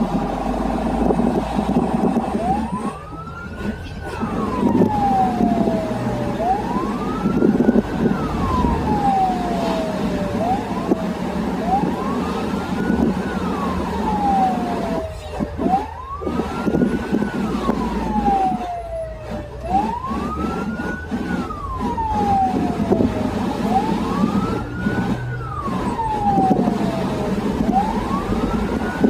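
Ambulance siren in wail mode, heard from inside the cab: a tone that rises quickly and falls more slowly, one cycle about every four seconds, starting about two seconds in after a steady tone. Under it the vehicle's engine and road noise run steadily.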